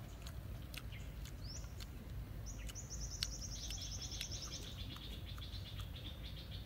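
Birds singing outdoors: a short rising call, then two rapid trills that overlap, one high and one lower, which runs on to the end. Scattered soft clicks and a steady low background hum of the open air run underneath.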